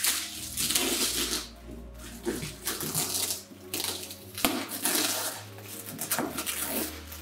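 Clear plastic bags and wrapping crinkling and rustling in repeated bursts, about five, as they are pulled off and out of a parcel, over quiet background music.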